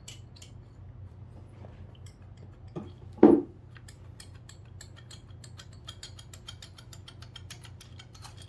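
Finned aluminium cylinder barrel of a Honda Benly 110 engine being worked off its studs by hand: one dull knock a little over three seconds in, then a run of quick, light metallic clicks as the barrel slides along the studs.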